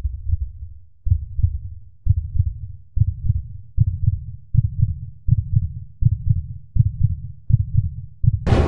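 Heartbeat sound effect: low double thumps that speed up steadily, from about one beat a second to nearly one and a half. Near the end a sudden loud hit cuts in over them.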